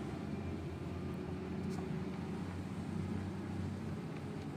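A steady low rumble of background noise, with a couple of faint clicks.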